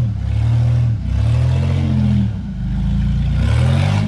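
A 4x4's engine revving up and down in repeated surges, each lasting about a second.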